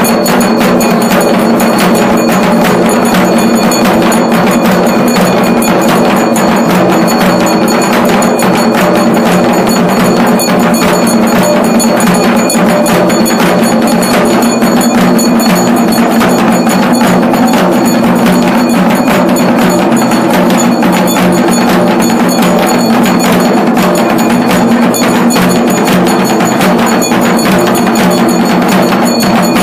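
Hindu temple festival percussion: drums and clanging beaten rapidly and without a break, with steady bell-like ringing tones over them, very loud throughout.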